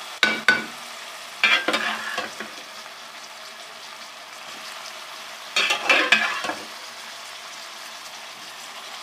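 Cauliflower florets being stirred into a frying spice masala in a pan: a steady sizzle, with louder bouts of stirring about a second in, around two seconds in, and around six seconds in.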